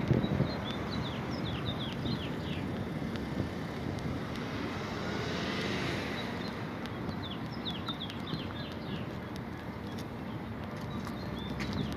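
Steady street traffic noise, with a vehicle passing about halfway through. Small birds chirp over it in several runs of short, quick, falling chirps.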